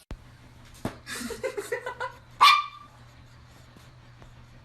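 A dog gives a quick run of short yips about a second in, then one loud, sharp bark.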